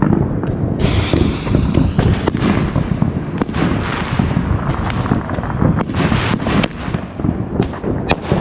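Consumer fireworks going off: a dense, continuous crackle studded with many sharp, irregular pops, with a short hiss about a second in.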